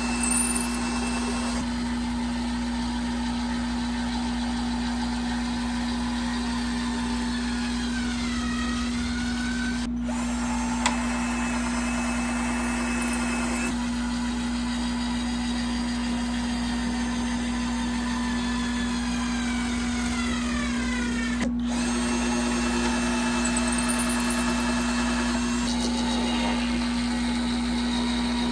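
Electric drill driving screws into the plywood top, the motor running steadily with its pitch sagging twice as it works under load and briefly cutting out.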